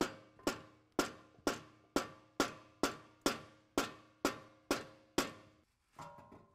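Hammer striking a factory steel exhaust pipe about twelve times, about two blows a second, each with a short metallic ring. The blows knock the muffler's inlet pipe loose from its slip joint with the resonator pipe.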